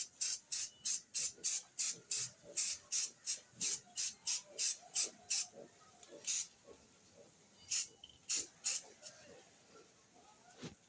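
Aerosol spray paint hissing out in quick short bursts, about three a second, then a few scattered bursts near the end, as the paint is dusted on to darken the surface.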